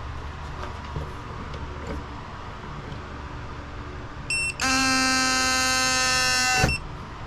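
A low steady hum with a few faint clicks, then a brief blip, then a loud, steady buzz lasting about two seconds that cuts off sharply.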